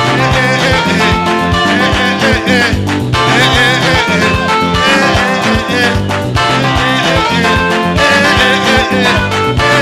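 Upbeat Rwandan gospel music with a steady beat and bass, playing without a break.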